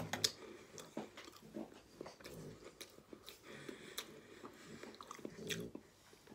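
Chewing and crunching a crisp with the mouth close to the microphone: a string of faint, irregular crunches.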